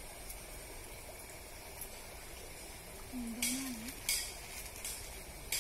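Steady outdoor background hiss, then from about three seconds in several short, sharp splashes a little under a second apart as large pond fish snap at food at the water's surface, with a brief voice among them.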